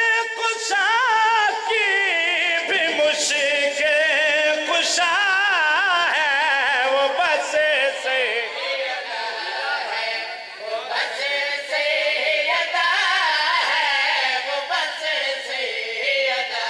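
A man singing a devotional qasida into a microphone in long, held phrases, his voice high and wavering with ornamented bends in pitch.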